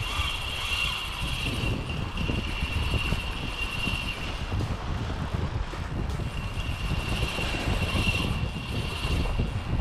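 Spinning reel's drag buzzing as a hooked fish strips line off, in a long run, a pause of about two seconds, then a shorter run, over heavy wind noise on the microphone.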